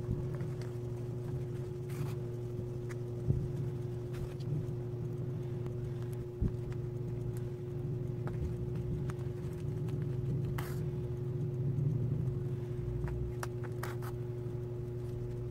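Steady low mechanical hum, with scattered short crinkles and clicks from a woven polypropylene rice sack being handled.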